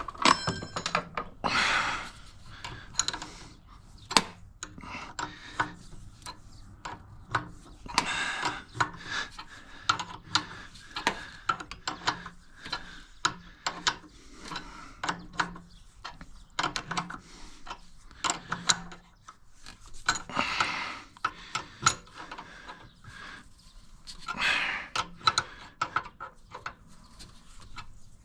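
Hand tools and metal fittings clicking and clanking in an irregular series of sharp knocks, with short rattling clatters now and then, as a hose line is fitted up on a pressure washer.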